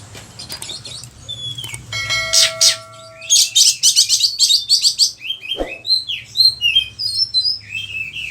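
Oriental magpie-robin singing: a fast run of loud, sharp notes, then a varied string of short whistled phrases that rise and fall.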